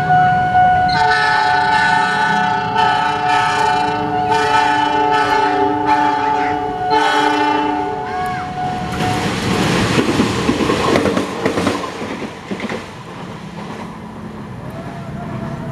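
KAI diesel locomotive's multi-tone horn sounding a rapid string of about nine short blasts over some seven seconds as the train runs in, above a steady high tone that stops about nine seconds in. Then comes the rumble and wheel clatter of the train passing, dying down to a quieter hum.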